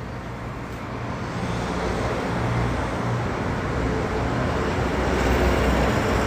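Road traffic: the steady rush of passing motor vehicles with a low engine rumble, growing gradually louder from about a second in.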